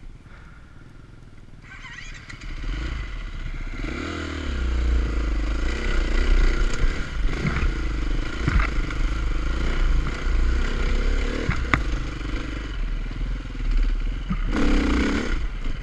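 Enduro dirt bike's engine running and revving up and down along a rough trail, with knocks and clatter from the bike. Quiet for about the first two seconds, then the engine builds, with a brief louder rev near the end.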